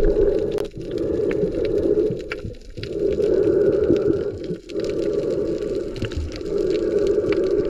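Underwater ambience picked up by a submerged camera: a steady low rushing hum that drops out briefly about every two seconds, with scattered faint clicks and crackles.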